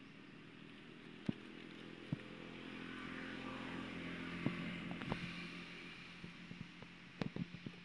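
A motor vehicle's engine running, swelling louder toward the middle and fading again as it passes, over a steady low hum, with a few scattered clicks.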